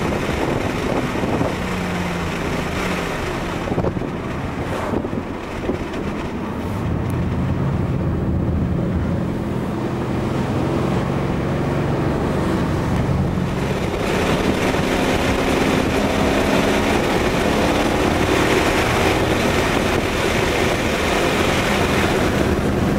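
Ford Mustang GT's V8 engine and road noise heard from inside the cabin while driving, the engine note holding steady for stretches and shifting in pitch. From about two-thirds of the way through, the tyre and wind noise grows louder.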